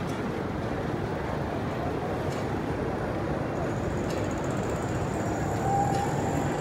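Steady street traffic noise from road vehicles, with no single sound standing out.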